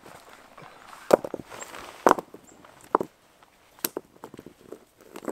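Stones being set down on rock and knocked against one another as a ring of rocks is built, several sharp clacks about a second apart, with footsteps and rustling on dry grass between them.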